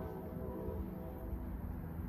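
Train running with a steady low rumble, the last of its horn blast fading out just after the start.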